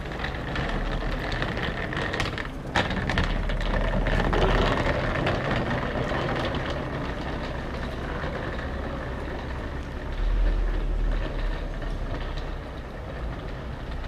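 A heavy vehicle such as a truck running close by on the street: a continuous engine rumble with road noise, swelling around four seconds in and again around ten seconds in.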